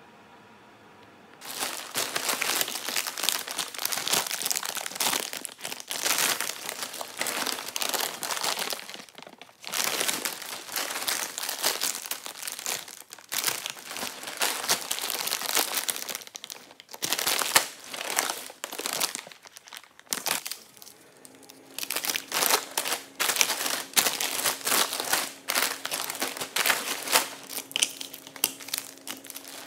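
Thin plastic shopping bag and snack packets rustling and crinkling as they are unpacked by hand. It starts about a second and a half in, with a short lull about two-thirds of the way through.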